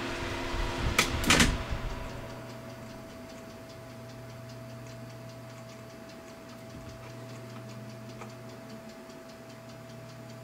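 Two sharp clicks about a second in, then a faint, rapid, even ticking over a steady electrical hum.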